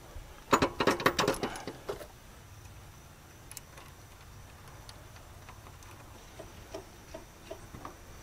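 Metal clicking and clinking of an A/C hose fitting being handled and threaded onto the compressor by hand. A quick cluster of sharp clicks comes about half a second in, then only a few faint ticks near the end.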